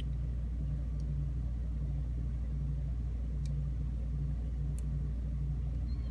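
A steady low rumble throughout, with three faint sharp clicks, about one, three and a half and nearly five seconds in, from a lock pick working the pins of a Schlage 5-pin mortise cylinder.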